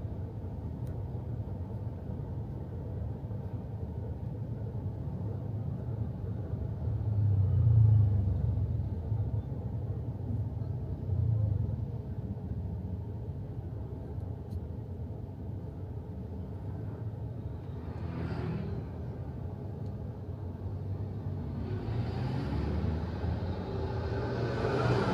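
Steady low rumble inside a car's cabin while it sits stopped or creeping in traffic. The rumble swells louder about eight seconds in and again about eleven seconds in. Other traffic passes outside about eighteen seconds in and again near the end.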